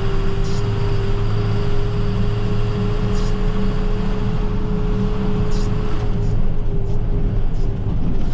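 Plow truck driving, heard from inside the cab: a steady engine and road rumble with a steady whine over it that fades away about six seconds in, and a few faint ticks.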